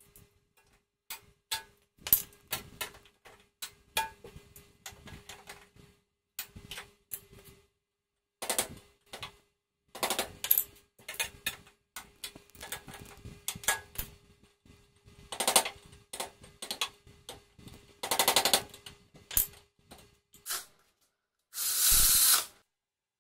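A hammer driving a steel punch against an aluminium chassis rail: an irregular run of sharp metal strikes, some singly and some in quick clusters, with a faint steady tone underneath. Near the end a cordless electric ratchet runs for about a second.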